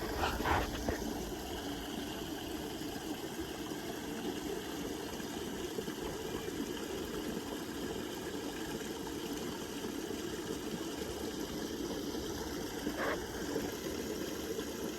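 Small creek trickling over little granite stones: a steady, even rush of water.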